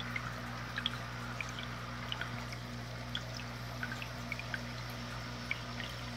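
Aquarium bubbler and filter: water trickling with small bubbles popping at irregular moments, over a steady low electric hum from the pump.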